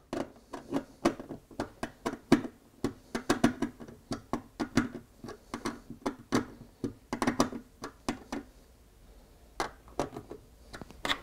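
Screwdriver tightening the screws of a barrier-strip terminal block: a run of quick small metallic clicks and scrapes, with a short pause about three-quarters of the way through.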